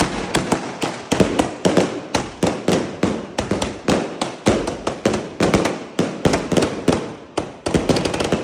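Fireworks going off in a rapid, irregular string of sharp bangs, several a second, starting abruptly and barely pausing.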